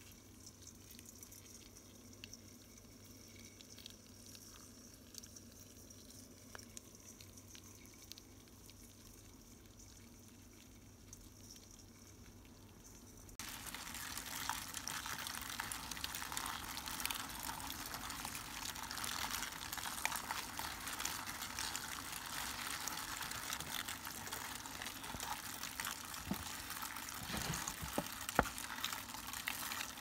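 Dozens of Brood X periodical cicada nymphs crawling over one another, first giving faint scattered scratches and ticks of their claws on a stainless steel bowl. About halfway through, the sound turns suddenly to a much louder, dense crackling rustle as they clamber over a paper bag.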